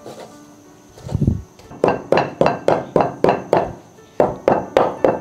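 Cleaver mincing pork on a wooden chopping board: a regular run of sharp chops, about four a second, starting a little under two seconds in and pausing briefly near four seconds before going on.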